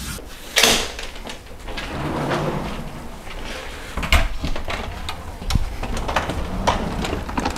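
Clicks and knocks of a hotel room door being opened and a rolling suitcase being handled through it, over a low room background. A brief rushing noise comes about half a second in.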